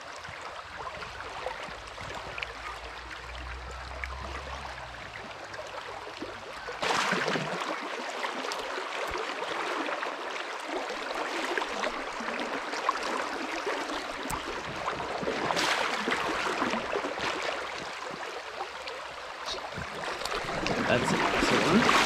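Fast river water rushing and rippling through a shallow riffle, a steady wash that gets louder about seven seconds in. Near the end it rises again as a hooked trout splashes at the surface.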